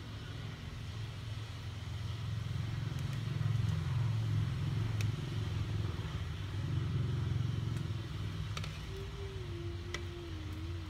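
A steady low rumble that swells and eases, with a few light metal clicks of a ladle against an aluminium wok of boiling water.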